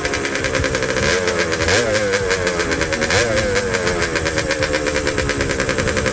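Yamaha YZ250 two-stroke engine of a racing hot saw running, with three quick throttle blips that raise the pitch briefly, about a second in, near two seconds and around three seconds.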